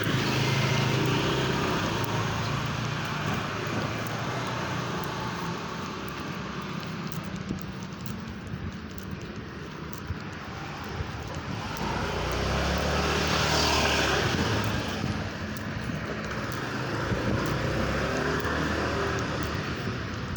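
Motor vehicle running on a road with steady engine hum and road noise, swelling louder for a couple of seconds about two-thirds of the way through.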